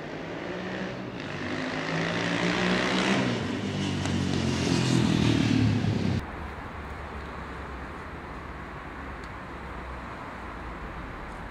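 A motor vehicle's engine passing on the street, growing louder over about six seconds and then cut off abruptly, leaving a quieter steady hum of street traffic.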